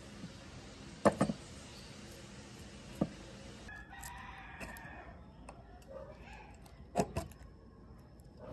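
A rooster crows in the background about four seconds in, one call lasting over a second. Around it come a few sharp knocks and clicks from hands and tools on the laminator's metal motor bracket and wire connectors, the loudest about a second in and again near seven seconds.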